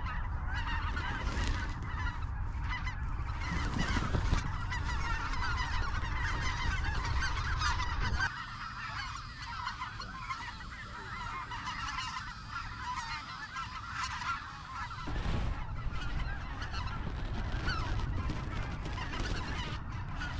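A large flock of snow geese calling overhead: a dense, continuous chorus of overlapping high honks.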